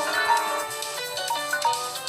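Smartphone ringtone playing a quick melody of short pitched notes, several sounding together.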